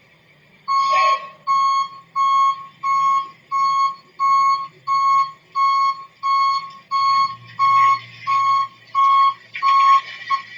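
Vehicle back-up alarm beeping: a single-pitched electronic beep repeated evenly, about three beeps every two seconds, starting under a second in and stopping just before the end. A low steady hum joins about two-thirds of the way through.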